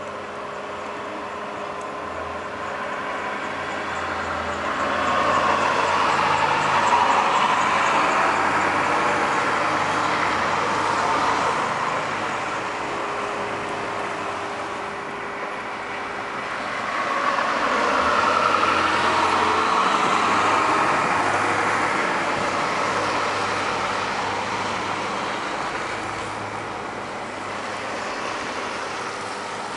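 Road vehicles passing in the snow: engine and tyre noise swells up and fades away twice.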